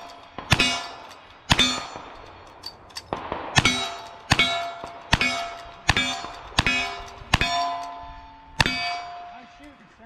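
About ten rifle shots fired at a steady pace in cowboy action shooting, each followed by the ringing of a struck steel target.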